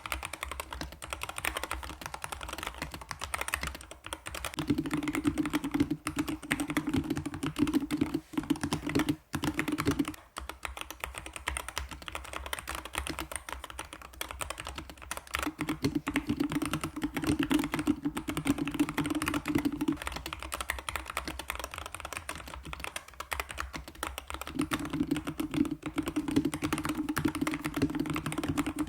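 Rapid, continuous typing on a Corsair K70 Max keyboard with magnetic (Hall-effect) switches, fully lubed and sound-dampened, with a brief pause about a third of the way in.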